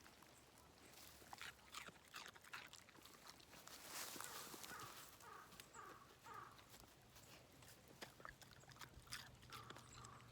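A dog crunching on a half-raw carrot: a run of irregular, crisp bites and chews.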